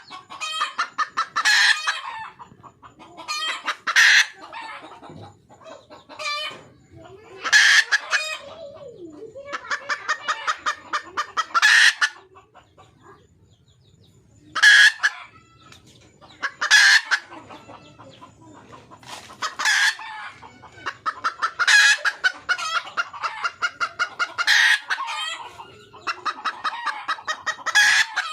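Red junglefowl hen calling for a mate: quick runs of clucks that each build to a loud, high cackling call, repeated about ten times with short pauses between.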